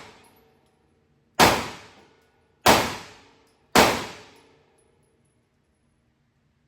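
Three gunshots fired about a second apart, each followed by a ringing echo that dies away in under a second.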